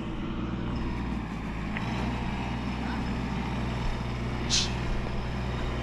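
An engine running steadily at a constant low hum, with a short hiss about four and a half seconds in.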